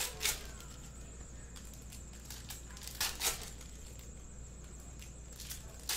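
2021 Bowman Sapphire foil card packs being torn open, one after another: a quick two-part rip about every three seconds, once near the start, once about three seconds in and once at the end.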